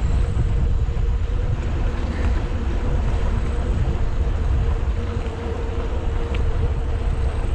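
Wind rushing over the microphone of a moving bicycle ride, a steady low rumble with a faint steady hum underneath.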